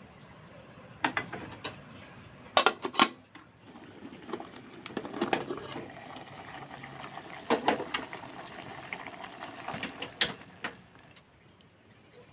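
Kitchenware being handled: a pot and utensils clattering, with a few sharp knocks, the loudest a quick pair about three seconds in, among shuffling and scraping.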